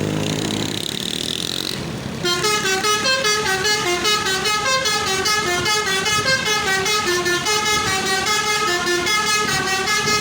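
A bus's basuri telolet horn playing a melody of stepped, pulsing notes. It starts about two seconds in, over the running vehicle.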